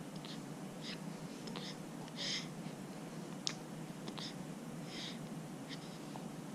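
A baby's short, soft breaths and snuffles, a few each second or so, with one sharp little click about three and a half seconds in.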